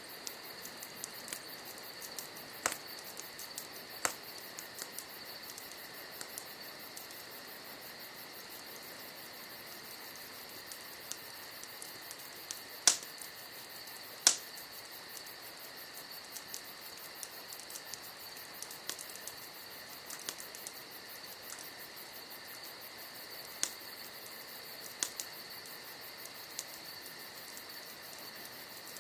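Campfire logs crackling, with scattered sharp pops, the two loudest about thirteen and fourteen seconds in, over crickets chirping steadily and unbroken.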